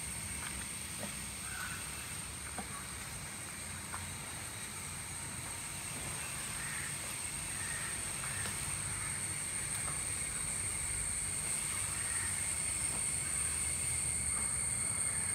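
Outdoor ambience: a few scattered crow-like caws over a steady high-pitched hum.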